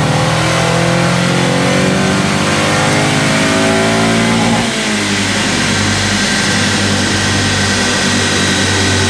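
Honda K20 2.0-litre inline-four, fitted with an aftermarket header and K&N air filter, pulling steadily up through the revs under load on a dyno. About four and a half seconds in the revs drop off abruptly, and it settles to a steadier, lower note.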